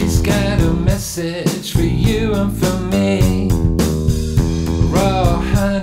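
Blues-style background music with guitar and bass, playing steadily.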